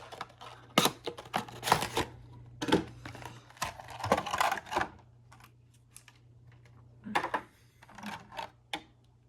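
A small cardboard model box and its packaging handled and opened by hand: irregular clicks, taps and short scraping rustles in several bursts, with quieter pauses between.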